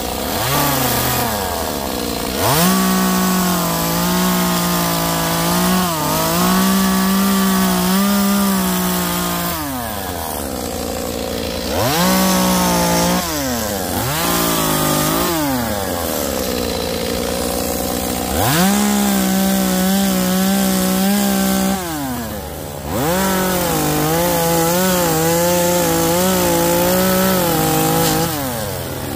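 Handheld two-stroke gas chainsaw carving into a wooden slab. The engine revs up and eases back toward idle about five times, with each cut lasting from one to several seconds.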